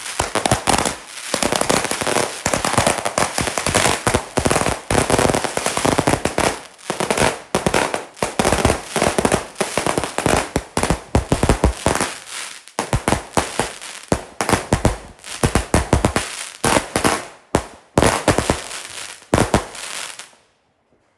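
Fireworks firing in rapid succession: a dense run of bangs and crackling that thins out and stops near the end.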